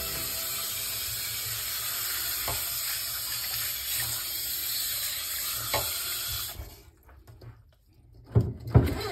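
Water running steadily from a faucet into a sink, shut off abruptly about six and a half seconds in. A few low thumps follow near the end.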